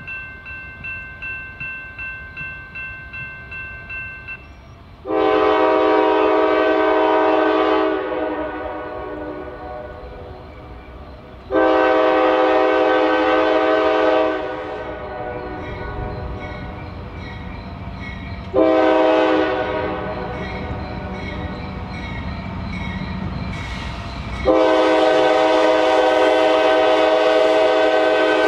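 Locomotive horn sounding the grade-crossing signal: two long blasts, a short one and a final long one, over the low rumble of the approaching train. Before the horn, a railroad crossing bell rings steadily at about two strokes a second, stopping about four seconds in.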